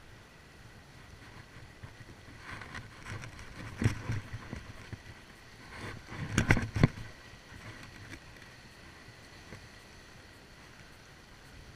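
Sea washing over shoreline rocks, with a few loud knocks and rustles of a fishing rod and reel being handled close to the camera, once about four seconds in and again in a short cluster a couple of seconds later.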